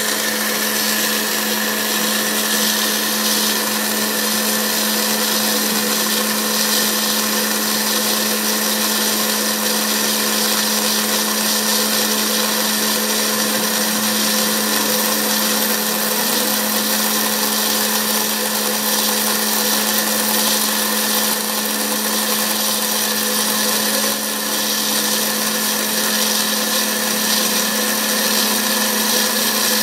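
CNC router spindle running steadily at high speed as its endmill mills a pocket in a foam block: a constant whine with a strong low hum under a hiss of cutting.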